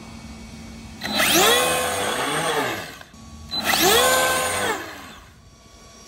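Electric motor and drivetrain of a remote-control F1 car whining up in two throttle bursts, about two seconds and a second and a half long. In each the pitch climbs quickly, holds, then falls away.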